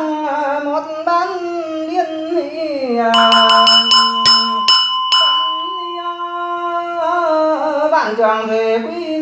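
A man chanting Buddhist liturgy in long, drawn-out sung tones. About three seconds in, a small bell is struck several times in quick succession, and its ring lingers for a couple of seconds under the chant.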